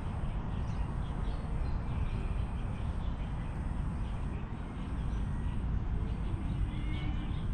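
Outdoor ambience: a steady low rumble with faint bird chirps scattered through it, a few clearer chirps near the end.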